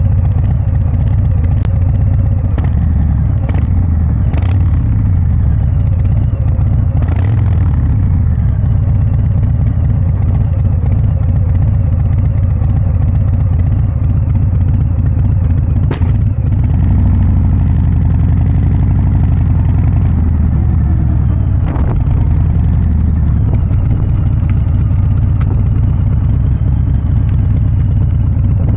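Harley-Davidson Breakout 114's 1868 cc Milwaukee-Eight V-twin running steadily through a Kesstech valved exhaust, a heavy, low rumble. A couple of brief sharp clicks cut through about midway.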